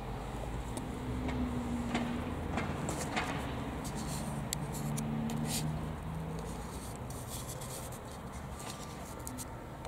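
Scratchy rubbing with scattered sharp clicks right at the microphone, thickest from about two to six seconds in. Under it run two faint, low, drawn-out tones.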